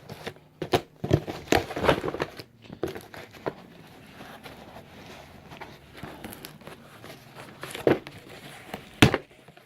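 A shipping box and its packing being pulled and torn open: irregular crinkling, tearing and scraping, busiest in the first few seconds, then a quieter rustling, with two sharp knocks near the end, the second the loudest.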